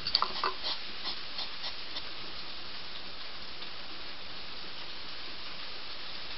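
Heavy rain hissing steadily. During the first two seconds a hedgehog crunches dry food pellets close to the microphone, a quick run of crisp clicks.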